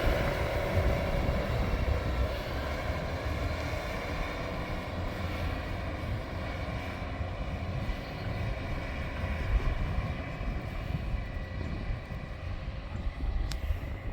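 John Deere articulated dump truck's diesel engine running steadily with a low rumble, gradually growing quieter.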